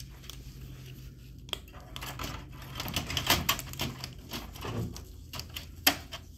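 Plastic and metal parts of an HP LaserJet 4001 laser printer clicking and knocking as gloved hands work inside its open rear during fuser reassembly. The irregular clicks come thickest around the middle, with one sharp click near the end, over a low steady hum.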